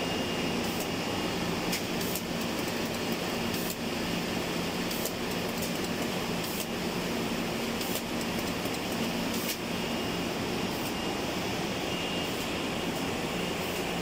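Bottling and case-packing line machinery running: a steady mechanical din with a low hum and scattered light clicks.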